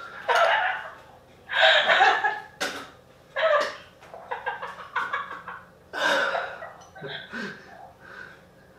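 A man's voice making a string of short, breathy non-speech outbursts, several in a row with brief pauses between.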